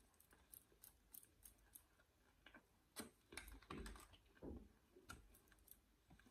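Faint chewing with small wet mouth clicks, then handling of the paper-wrapped sandwich from about three seconds in: a cluster of soft clicks and paper crinkles.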